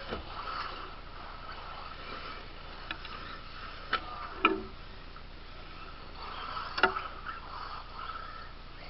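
1/10-scale RC buggies with brushless motors driving on a dirt track: a thin electric-motor whine that swells and fades, with a few sharp knocks, the loudest about four and a half and seven seconds in.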